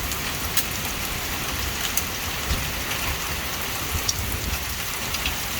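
Heavy rain and hail coming down in a severe thunderstorm: a steady hiss with a few scattered sharp ticks of hailstones striking.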